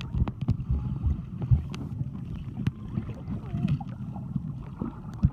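Muffled sound of a camera held under river water: a low churning rumble of moving water with scattered clicks and knocks, and the high sounds cut away.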